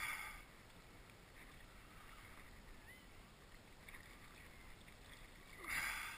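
Faint steady hiss of calm water around a kayak during the fight with a hooked fish. Near the end there is a brief swish as the landing net is brought out.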